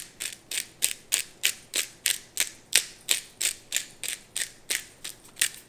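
Hand-twisted pepper grinder cracking peppercorns, a steady run of crunchy ratcheting clicks, about three a second.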